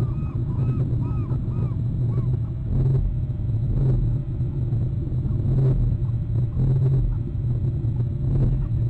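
Steady low rumble, with a bird calling a quick series of short arched notes, about three a second, during the first two seconds.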